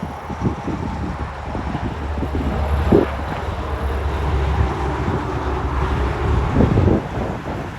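A big rig truck going by: a low rumble of engine and road noise builds for a few seconds and then fades, with wind buffeting the microphone.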